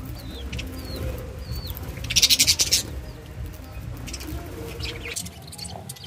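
Flock of budgerigars chirping and chattering while feeding. Short rising chirps come in the first second or so, then a quick burst of chatter, the loudest part, a little after two seconds in.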